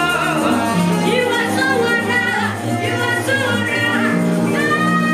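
Live gospel worship music: a woman sings into a microphone over a live band, with a bass line holding steady low notes under her voice.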